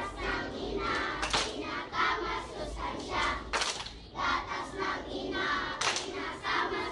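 Many children's voices shouting and singing along together, loud and overlapping, with a few sharp strokes about every two seconds.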